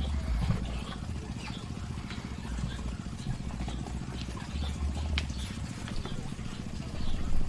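Muscovy ducks pecking and dabbling at feed in a plastic basin: a rapid, irregular clicking and rustling, over a low rumble that swells a few times.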